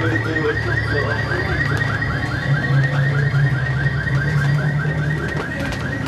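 Fast warbling electronic alarm tone, about six rising-and-falling sweeps a second, running over a steady low hum.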